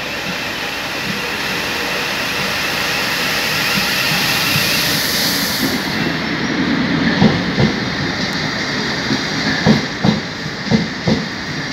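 Thameslink electric passenger train running into a station platform. A steady rumble grows louder, with a high hiss that cuts off about halfway through, followed by a run of irregular knocks as the wheels pass over rail joints.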